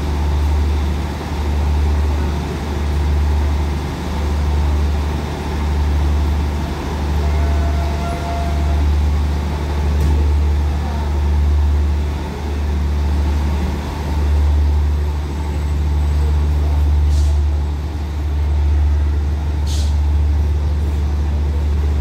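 Deep, steady engine rumble of a diesel passenger train standing at the platform, swelling and fading about every one and a half seconds. Two short clicks come near the end.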